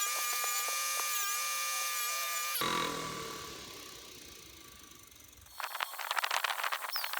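A small electric power tool runs with a steady whine while cleaning the toolbox's metal hardware, is switched off about two and a half seconds in and winds down. About five and a half seconds in, a rapid scratchy scrubbing begins.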